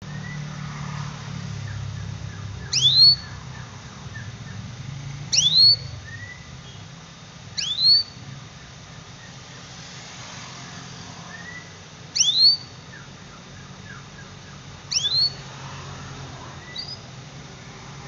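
Canary giving loud, rising whistled call notes, five of them at intervals of two to three seconds, with faint short chirps in between, over a low hum. It is a masteran call used to coax young canaries into calling.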